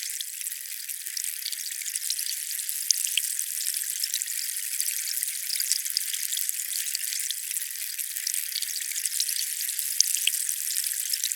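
Water making a steady, dense crackling hiss scattered with many small droplet ticks. It is high-pitched, with no low end at all.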